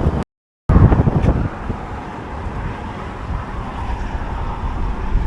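Wind buffeting the microphone: a loud, gusting low rumble that cuts out completely for a split second near the start, then eases a little about a second and a half in.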